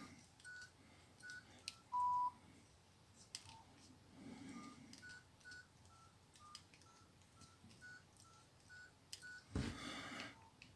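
Nokia 5300 keypad tones: a string of faint, short beeps at a few slightly different pitches, about two a second, as a service code is keyed in to call up the phone's serial-number and life-timer screen. One longer, lower beep comes about two seconds in.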